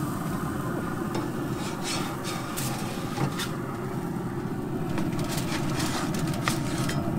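Metal spatula scraping and clicking against pellet-grill grates, with aluminium foil crinkling as a foil packet of fish is lifted off. Short scrapes and clicks come scattered, more of them in the second half, over a steady low rumble.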